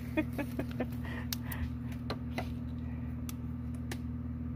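Scattered light clicks and rattles of hands working a car radio wiring harness with a wire stripper, over a steady low hum.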